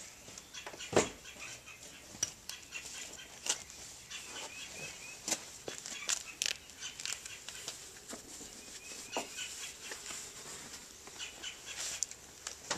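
Scattered knocks, bumps and rustling of a person climbing about on a car's rear seat and trim, with a heavier thump about a second in.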